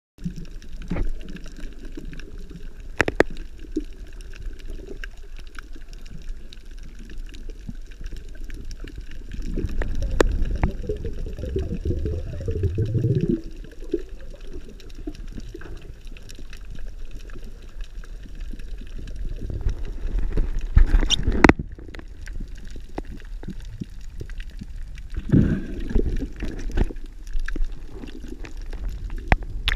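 Water heard with the microphone underwater: muffled sloshing and gurgling with scattered sharp clicks and knocks. It swells into a louder gurgling stretch about ten seconds in, with more loud bursts later.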